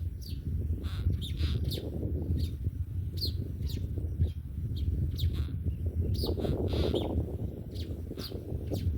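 Repeated short, high bird chirps, each falling in pitch, coming about once or twice a second over a steady low rumble.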